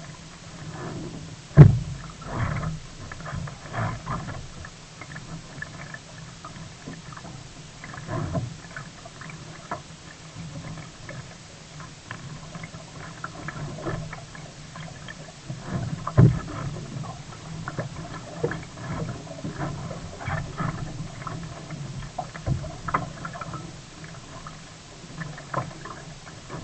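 Sea kayak on the water: irregular paddle splashes and water slapping at the hull, over a low steady rumble. Two sharp knocks, about a second and a half in and again about sixteen seconds in, are the loudest sounds.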